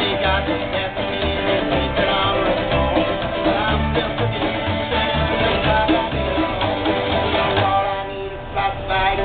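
Bluegrass trio playing an instrumental passage: acoustic guitar and mandolin picking over an upright bass plucking a steady bass line. Near the end the bass drops out for about a second, then the music carries on.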